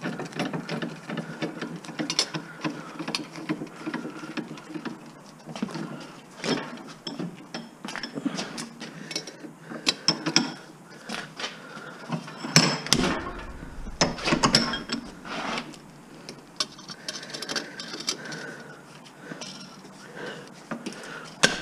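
Hand tools working on metal scrap motor parts: an irregular run of metallic clicks, rattles and clinks, with louder knocks about two-thirds of the way in.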